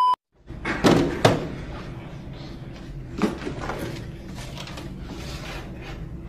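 A test-pattern beep tone cuts off at the start, then two sharp knocks or slams about a second in, close together, and a lighter thump a little after three seconds, over steady room noise.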